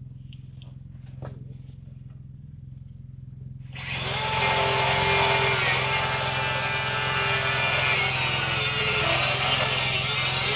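A handheld power tool switches on abruptly about four seconds in and runs steadily at full speed with a harsh, dense whine. Before it there is only a low hum and a few faint clicks.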